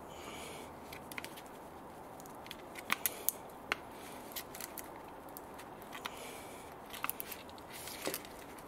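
Screwdriver prying at a glued-in plastic cover in a car door speaker mount: sharp clicks and scrapes of metal on plastic, a cluster about three seconds in and another near the end.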